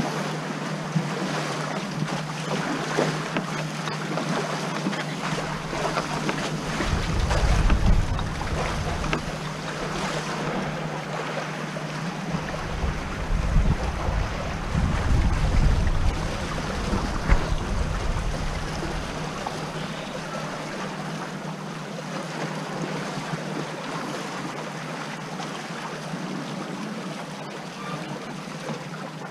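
Water rushing past the hulls of a Corsair F-27 trimaran under sail, with wind buffeting the microphone. The buffeting comes in gusts about seven seconds in and again for several seconds in the middle.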